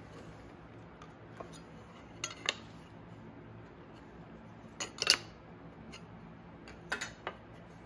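A few light knocks and clicks of small wooden pieces and a square being handled and set down on a wooden workbench, over a faint low hum.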